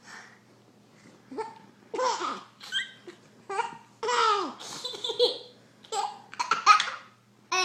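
A baby giggling and laughing in a string of high-pitched bursts, loudest near the end.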